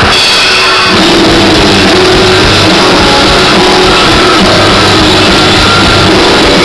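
Rock band playing live, very loud, with electric guitar and keyboards; the full band comes in about a second in.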